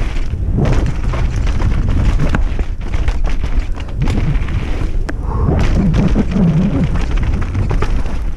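Mountain bike rattling and rumbling over a wet, rough dirt trail at speed, with a steady low rush of wind on a helmet-mounted microphone and frequent knocks as the bike hits roots and bumps.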